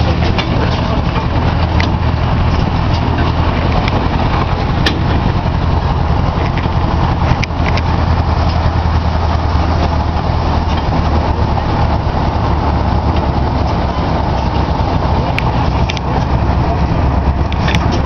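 Steady low engine rumble of a small trackless park tourist train, heard from inside one of its open cars as it rolls along, with a few light clicks.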